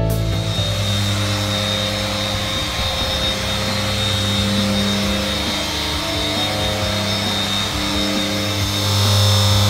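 Handheld electric polisher running steadily with its pad pressed against car window glass, polishing the glass: a steady motor noise with a low hum and a faint high whine.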